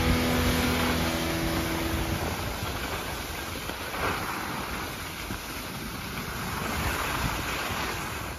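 Skis sliding and scraping over packed snow with wind rushing over the microphone as the skier glides downhill, a little louder about four seconds in. Background music fades out about two seconds in.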